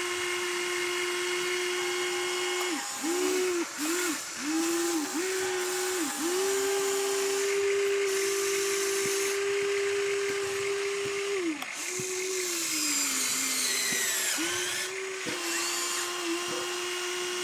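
Electric motors of a Huina RC excavator running with a steady whine as the boom and bucket work. The pitch dips briefly several times, then slides down for a couple of seconds before coming back up.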